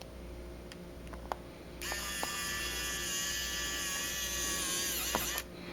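Electric precision screwdriver running for about three and a half seconds as it drives a small phone screw, a steady motor whine that sags briefly just before it stops. A couple of light clicks come before it starts.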